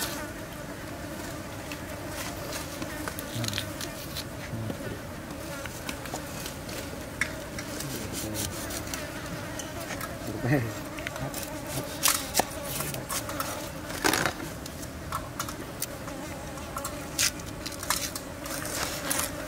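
Insects buzzing steadily throughout. Over the buzzing come the small sounds of a red onion being peeled by hand and cut with a cleaver on a wooden chopping board, with a few sharp knocks of the blade in the second half.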